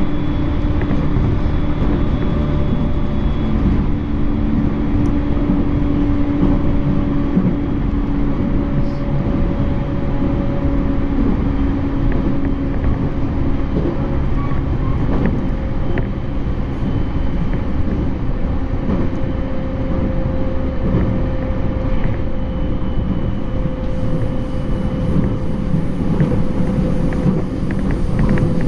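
E231 series electric commuter train running, heard from inside the car: a steady rumble of wheels on rail, with faint whining tones that slowly fall in pitch.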